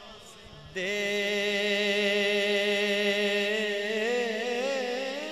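Male voice singing an Urdu naat, drawing out one long ornamented note with a wavering pitch that begins about a second in, over a steady low drone.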